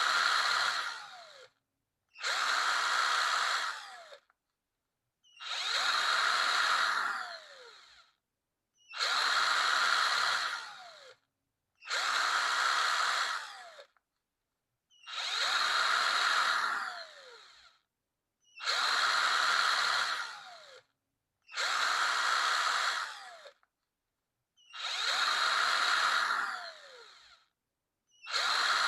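Electric power drill run in short bursts, each about two seconds long, nine times at even spacing. At the end of each burst the motor's pitch falls as it winds down.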